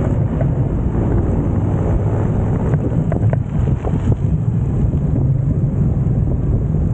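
Wind buffeting the microphone of a cyclist's camera while riding, over a steady low rumble of traffic, including a bus alongside and motorcycles. A few faint clicks about three seconds in.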